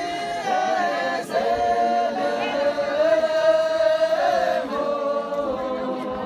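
A group of voices singing together without instruments, holding long notes that step from one pitch to the next.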